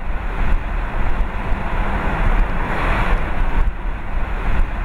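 A car driving at road speed: steady tyre and wind rumble heard from inside the car, swelling briefly about three seconds in.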